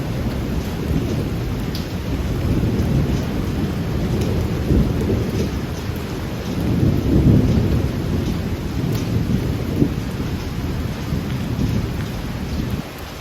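Thunderstorm: heavy rain with a continuous low rumble of thunder, which swells about seven seconds in. The level drops suddenly just before the end.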